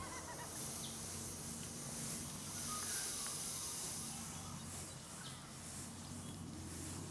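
Quiet outdoor ambience by a lake: a steady high hiss with a faint low hum underneath and a few short, faint bird chirps.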